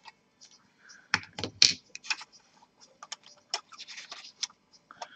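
Irregular small clicks and light scrapes of a laptop's cooler assembly and board being handled and worked loose after unscrewing.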